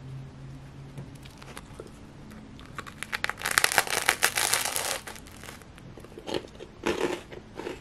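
Biting into a slice of toasted sourdough topped with sardines: a dense crackling crunch of the toasted crust about three seconds in, lasting about two seconds, then a few shorter chewing crunches near the end.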